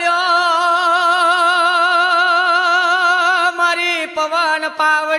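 Regadi-style singing: one voice holds a long high note with wide, even vibrato, then moves through a few shorter notes near the end.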